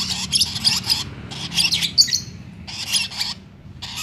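Lovebirds chattering in four harsh, rapid bursts with short gaps between.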